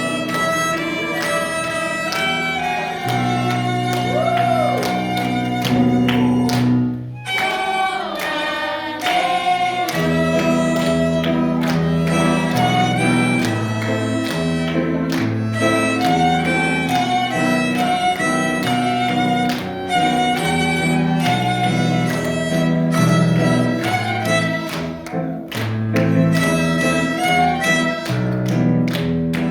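A small ensemble playing, a violin carrying the tune over sustained bass notes. There is a swooping slide about four seconds in and a brief drop-off near seven seconds before the playing picks up again.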